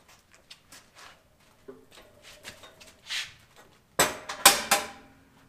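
Light knocks and rattles as a small metal-cutting bandsaw is handled and turned over on its steel stand, then a loud cluster of metal clanks with a short ring about four seconds in as the saw comes down.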